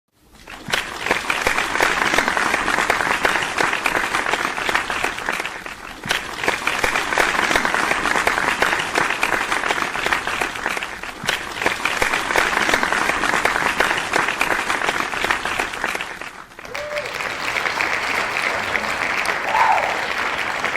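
A large crowd applauding: dense, continuous clapping that swells in at the start, eases briefly twice and drops away sharply about three quarters through before picking up again.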